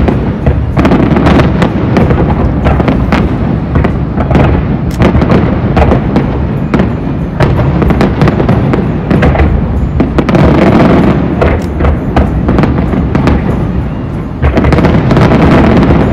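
Distant aerial fireworks display: a dense, continuous barrage of booms and crackling bursts, with music playing along. It gets louder shortly before the end.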